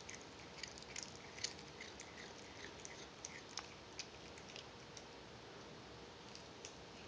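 Cat chewing a piece of rubber band: faint, irregular little clicks and smacks from its mouth, thinning out after about four seconds.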